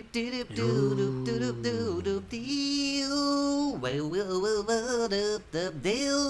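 Background music with singing voices, including one long held note about halfway through.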